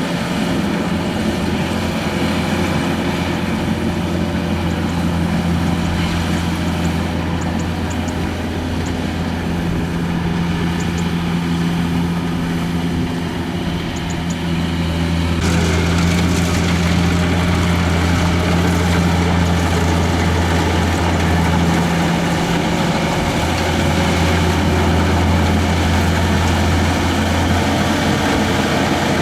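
Kubota DC-70 combine harvester's diesel engine running steadily under load with a deep, even hum and the whirring noise of the machine working. About halfway through it grows louder and brighter and stays so.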